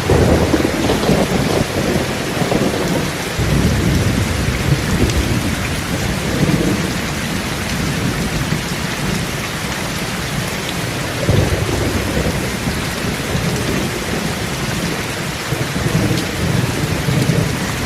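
Steady rain with rolling thunder, low rumbles swelling up several times over the rain's even hiss.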